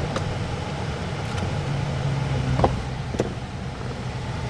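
Car engine idling, heard inside the cabin as a steady low rumble, with a few short clicks.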